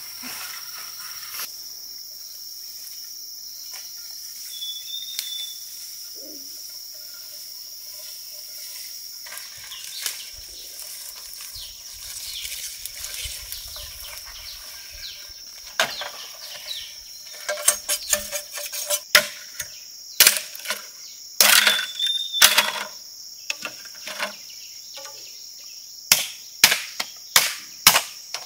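A steady high drone of insects runs throughout. From about halfway, scattered sharp knocks come in, and near the end they settle into regular chopping strikes on wood, about two a second.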